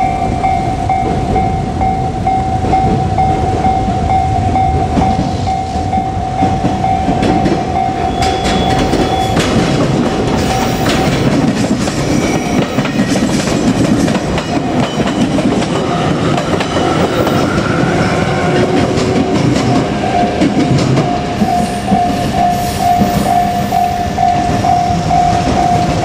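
Japanese level crossing alarm bell ringing steadily in a fast pulsing tone while a JR Kyushu 817 series electric train passes close by, its wheels clattering over the rail joints. The train noise is loudest in the middle and drowns the bell, with a brief rising motor whine as it pulls away, and the bell rings out clearly again near the end.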